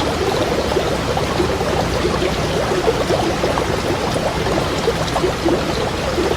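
Small stream babbling over stones: continuous flowing water with dense, quick bubbling and gurgling.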